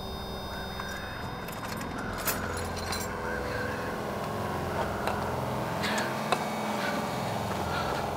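Metal hand tools clinking a few times over a low steady hum.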